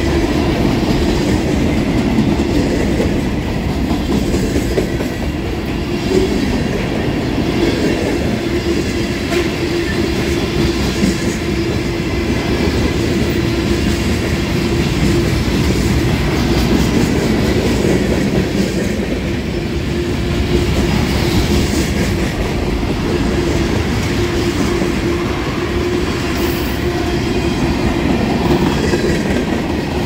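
Norfolk Southern freight train's mixed cars (tank cars, covered hoppers and gondolas) rolling past close by at a steady pace, steel wheels running on the rails, with a steady low tone under the wheel noise.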